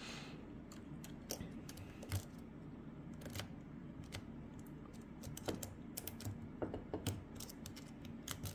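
Scattered small metallic clicks and scrapes of a lock pick and tension wrench working the pins in the cylinder of a Lockwood Twin brass padlock. The clicks come more often in the second half.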